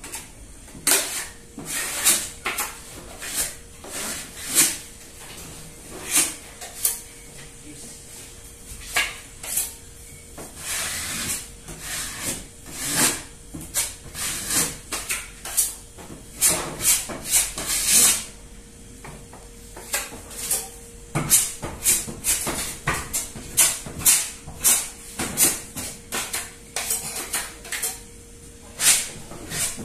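Irregular scraping strokes of hand tools at work, about one or two a second, over a faint steady hum.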